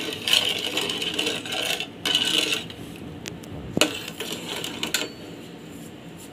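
Long steel spoon stirring milk in a metal pot, scraping against the pot to mix in the sugar, with one sharp knock of metal on metal a little before four seconds in. The scraping dies down about five seconds in.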